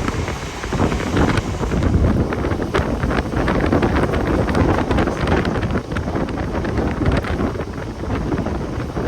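Mumbai suburban electric train running at speed: wind rushing over the microphone over a steady running roar, with irregular clicks and clatter from the wheels on the track.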